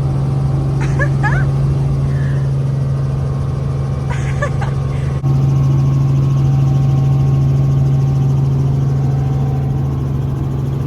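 Helicopter in flight heard from inside the cabin: a loud, steady low drone of engine and rotor. It breaks off for an instant about halfway through and carries straight on.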